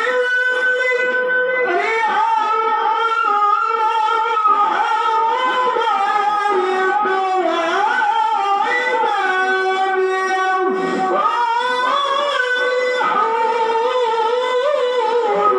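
A qari reciting the Quran in the melodic tilawah style: a single voice holding long, high, ornamented notes that waver and slide between pitches, with a few short breaks for breath.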